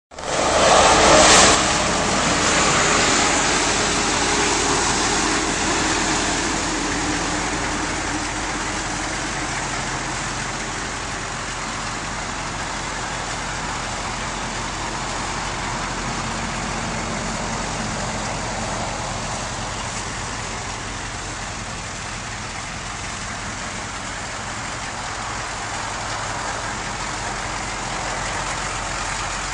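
Chevrolet K5 Blazer's 6.2-litre diesel engine running steadily, loudest in the first couple of seconds and then settling to an even level.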